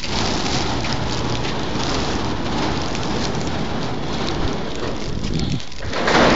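Electric swing-gate opener running as the remote-operated metal gate opens: a steady rushing noise that cuts off about five and a half seconds in. A brief louder rush follows near the end.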